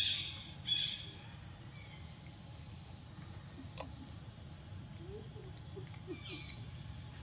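Short high-pitched animal calls, three in all: two close together right at the start and one a little over six seconds in, with a single sharp click near the middle. Under them runs a steady low background noise.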